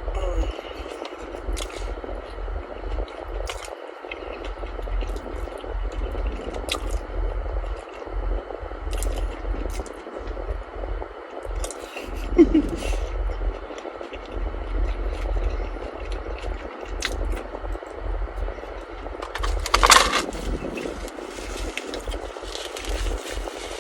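Close-up chewing and biting into a cinnamon-sugar-coated Korean corn dog: soft wet and crunchy mouth sounds with small clicks, over a steady low rumble. There is a louder noisy burst about twenty seconds in.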